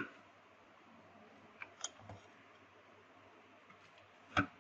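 A few faint clinks of a metal ladle against a pressure cooker pot about two seconds in, then a louder single knock near the end.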